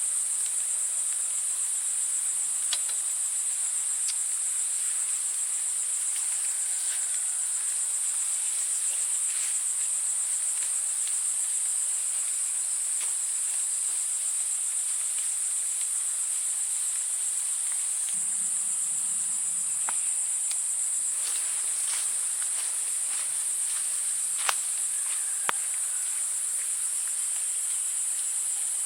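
Forest insect chorus: a steady, high-pitched continuous drone of crickets or similar insects, with a few faint clicks.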